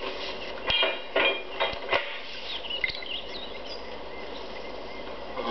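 A few light clinks and knocks of china teacups and saucers being handled, over a steady low hum, with faint high chirps in the middle.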